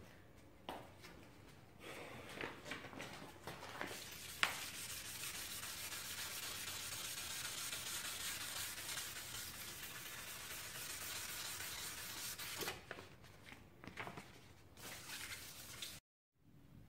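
A pad scrubbing back and forth along the freshly etched steel blade, a steady rubbing hiss that lasts several seconds, with a few sharp knocks before and after.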